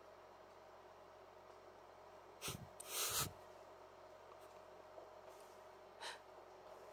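Short breathy sounds of a person, like sharp breaths or sniffs: two close together about two and a half seconds in, the second longer, and a brief one near the end, over a faint steady hum.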